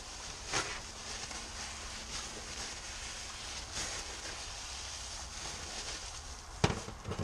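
Plastic bubble wrap rustling and crinkling as it is unwrapped from a glass beer bottle by hand, with a few sharper crackles, the loudest near the end, over a steady low background noise.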